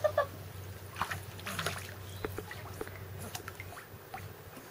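Light water sloshing and small scattered splashes of a Weimaraner puppy paddling in a swimming pool.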